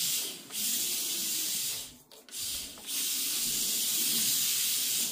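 WLToys K969 drift RC car sliding on a rubber mat: a loud high-pitched hiss from its drift tyres scrubbing sideways, in several bursts with short breaks, the longest over the last two seconds.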